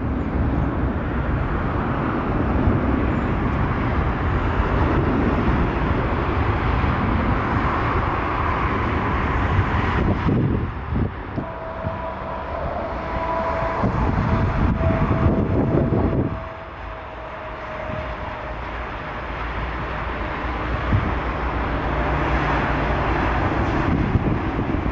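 Jet airliner engines running at low taxi power: a steady rumble with a thin whine through the middle, mixed with gusty wind on the microphone.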